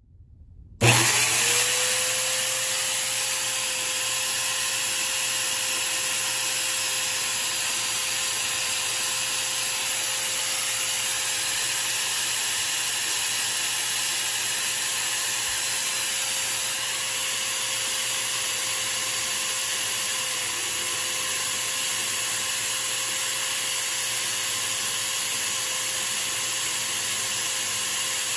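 Electric drill motor starting up about a second in, its whine rising briefly and then running steadily, spinning a small wooden slug blank while a hand file is held against it to shape it.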